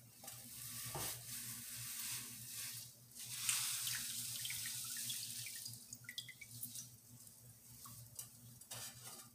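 Cannabis-infused oil trickling from a squeezed cheesecloth bundle into a saucepan, a steady trickle for the first few seconds, then scattered drips. A faint steady hum sits underneath.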